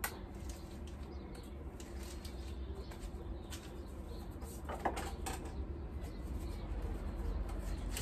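A few light knocks and rustles from items being handled in the back of a van, over a low steady rumble.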